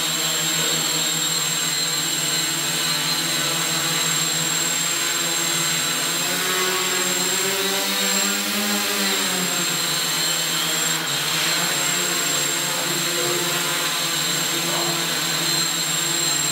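AeroQuad quadcopter's four electric motors and propellers running in a steady, loud whine under load, straining to lift the weight of a seated person. The pitch rises and falls briefly about seven to nine seconds in.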